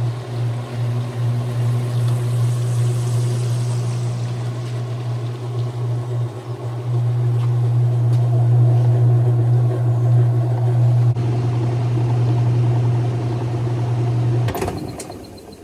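Whirlpool washing machine running with water moving through it under a steady low hum; about a second before the end the hum stops suddenly with a click.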